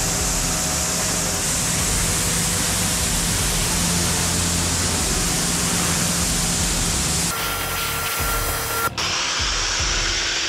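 Pressure-washer jet spraying water over a foam-covered car seat: a steady hiss of spray over a steady machine hum. About seven seconds in it cuts to a wet-extraction vacuum running, first with a steady high whine, then the steady rush of the extractor.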